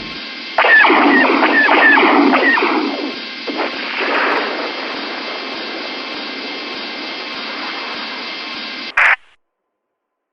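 Sci-fi space-combat sound effects heard through a radio filter. A quick volley of about five descending laser-blaster shots comes first, then a noisy burst, then steady radio static hiss. The static ends in a short squelch burst about nine seconds in and cuts off.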